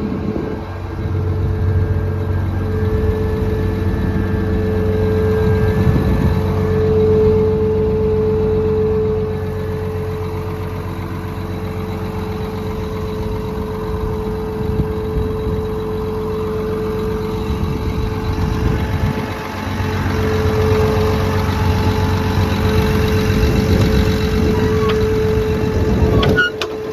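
Liebherr diesel engine of a John Deere 950J crawler dozer running steadily at idle, a low drone with a steady whine over it. The sound dips briefly just before the end.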